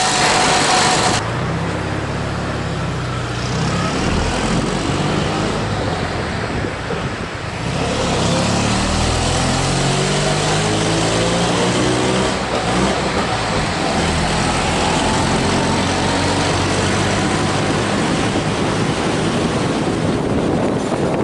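Fiat 500R's air-cooled two-cylinder engine running through a new exhaust silencer. The revs drop about a second in, climb again around eight seconds in, then hold fairly steady.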